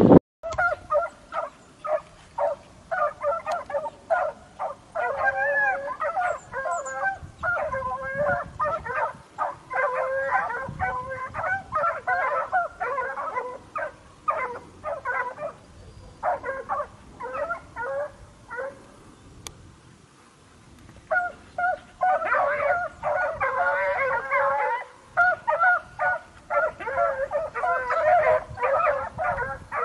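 Hunting dogs yelping and barking excitedly in rapid, near-continuous runs of short high calls. The calls stop for about two seconds past the middle, then start again.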